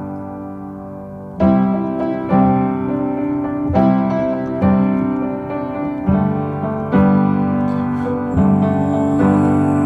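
Background music: a piano playing a slow run of chords, one struck about every second, in an instrumental gap between sung lines of a pop song.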